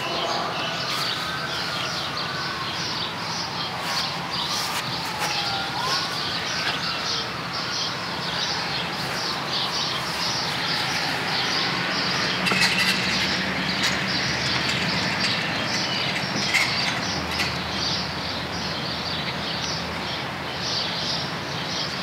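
Outdoor ambience of birds chirping steadily, with a distant siren wailing up and down through the first several seconds and then fading out.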